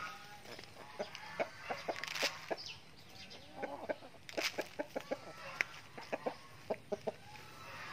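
Chickens in a small flock of hens and roosters clucking, many short clucks in irregular quick runs.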